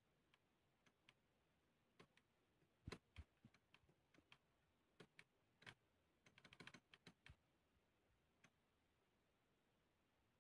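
Faint, sharp clicks of push buttons on a motor-starter control station being pressed, with a magnetic contactor clicking in and out as the circuit switches. The clicks are scattered, with a quick run of them about six to seven seconds in.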